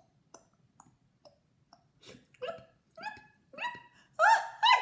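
A woman's voice making gulping 'glu, glu' drowning noises for a sinking crocodile: a few soft mouth pops, then a run of short gulping cries, each rising in pitch, coming quicker and growing louder near the end.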